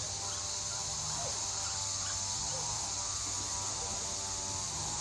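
Steady high-pitched drone of an insect chorus, with a few faint short chirps and a low hum underneath.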